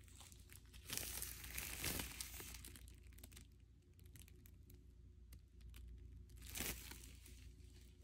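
Clear plastic shrink wrap from a vinyl LP crinkling and tearing in the hands, in two loud spells of crackling, one about a second in and one near the end, with lighter crackles between.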